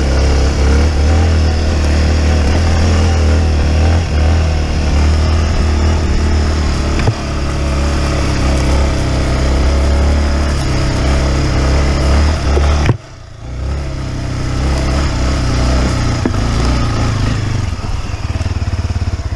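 Motorcycle engine running while riding, with rushing wind noise on the camera microphone. About two-thirds of the way through, the sound drops off suddenly, then builds back up.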